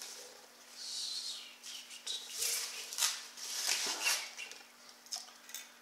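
Foam packing wrap and a cardboard box rustling and crinkling in several short spells as a boxed part is unwrapped and lifted out by hand.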